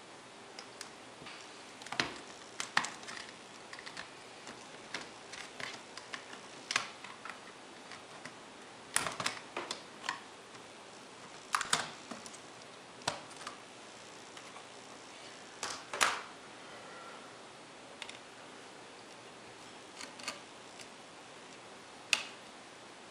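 Irregular small clicks, snaps and taps of plastic parts and a pry tool as an Acer Aspire One D250 netbook's palmrest and touchpad are pried off its case. Clusters of clicks come every second or two, with the sharpest snaps about two thirds of the way through and near the end.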